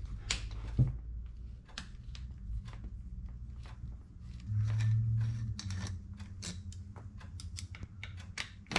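Light metallic clicks and scrapes of a T-handle screwdriver working the small float-bowl screws out of a Yamaha RZ350 carburetor, tool against alloy. A low steady hum runs underneath and swells briefly about halfway through.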